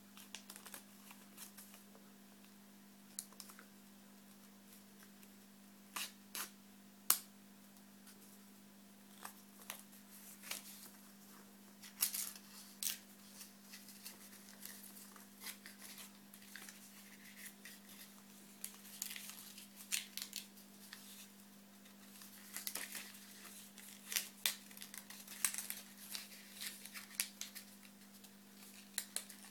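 Origami paper being folded and creased by hand: sharp crackles and rustles of the sheet, a few scattered ones at first and busier from about the middle on. A low steady hum runs underneath.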